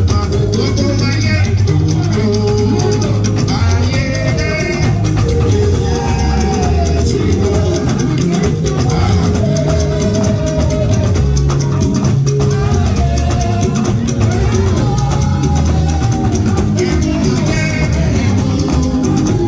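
Upbeat music with a steady drum beat and a singing voice.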